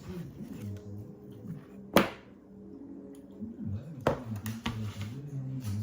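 A person eating papaya and humming low, with two sharp clicks about two and four seconds in; the first click is the loudest.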